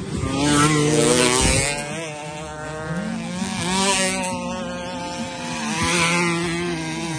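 Modified racing scooters (pasolas) on a dirt track, their small engines revving hard as they pass close by. The engine sound is loudest about a second in, then rises again around four seconds and around six seconds as more bikes go past.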